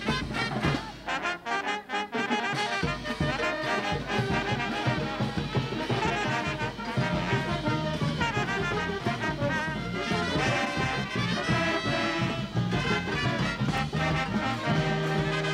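A live brass band with tubas plays continuously, its bass line dropping out briefly about two seconds in.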